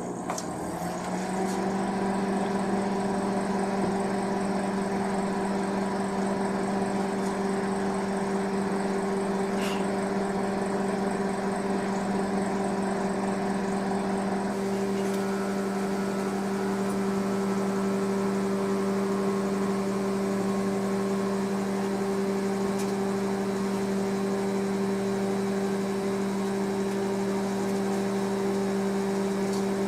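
Microwave oven running on a four-minute cook, a steady hum that comes up within the first second or two after it is started and then holds even.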